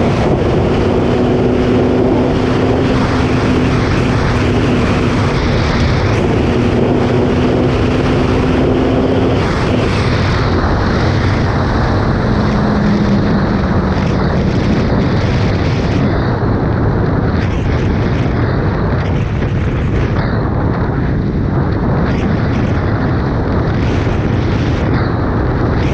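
Suzuki Hayabusa motorcycle's inline-four engine running at a steady cruise under heavy wind noise on the microphone. The engine's steady drone dips slightly in pitch about twelve seconds in, then is mostly buried in the wind rush.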